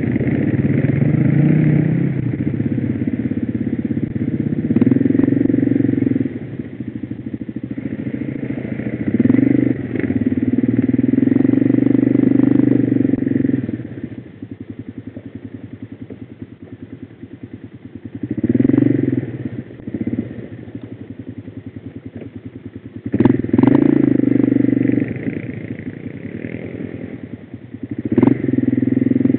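Quad bike (ATV) engine heard from the rider's seat, running unevenly. It is given throttle in short bursts about five times, each time rising in pitch and dropping back to a lumpy idle between bursts.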